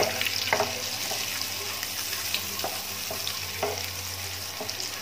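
Boiled eggs sizzling as they fry in hot oil in a nonstick pan, with a wooden spatula stirring them and tapping the pan a few times.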